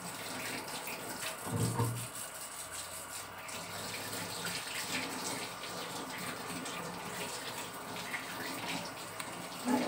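Steady hiss of running water, like a kitchen tap left running, with a brief low sound about a second and a half in.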